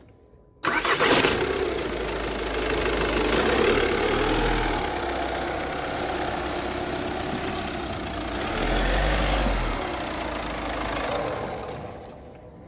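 Volkswagen 1.6 TDI diesel engine starting about half a second in, after a brief silence, then idling. The sound dies down near the end.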